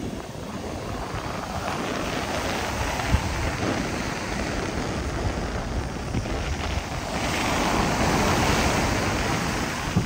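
High surf breaking on the beach, with wind buffeting the microphone; the roar of the waves swells louder about seven seconds in.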